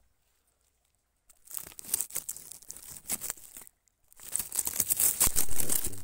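Close rustling and crackling handling noise, many quick clicks and scrapes, after about a second of dead silence. It comes in two stretches, the second louder.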